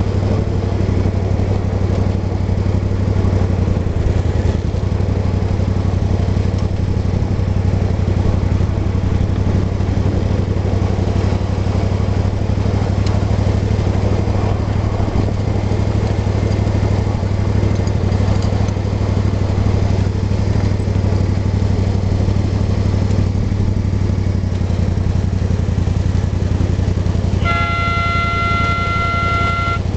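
Steady low engine drone and running rumble of a 1/8-scale SOO Line F7A ride-on locomotive pulling the train. Near the end a horn sounds one steady blast of about two and a half seconds.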